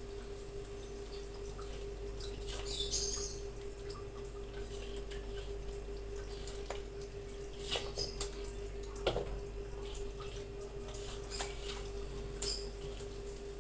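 Spatula stirring squid in a thick sauce in an aluminium wok: scattered wet squelches with light scrapes and a few sharper clicks of the spatula against the pan, over a steady hum.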